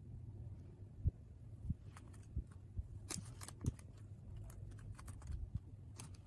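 Faint small clicks and taps of fingers handling a plastic decoden hair clip with pearl and clay toppings, with a few soft thumps over a low steady hum. The clicks cluster in the middle and come once more near the end.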